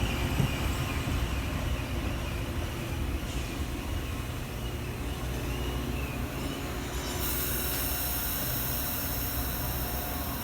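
Metra commuter train with an EMD diesel locomotive pulling into the station: a steady low rumble with a thin squeal that fades out in the first few seconds. A steady high hiss starts abruptly about seven seconds in.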